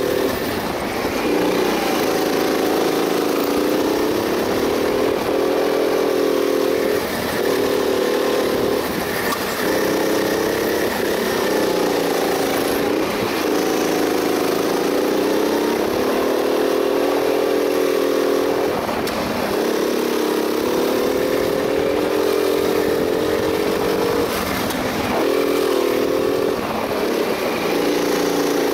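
Go-kart engine running hard from the driver's seat, its pitch rising along the straights and dropping briefly into each corner, many times over.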